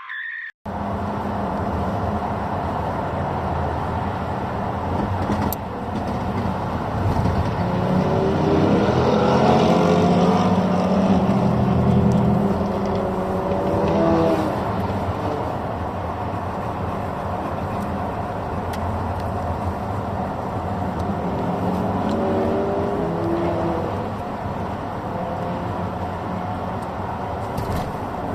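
Car engine running under load, its pitch climbing in a run of short rising steps twice, over a steady engine rumble.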